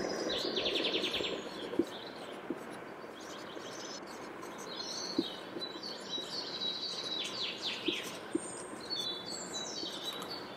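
Small birds chirping and trilling in the background, with a few faint taps of a marker on a whiteboard.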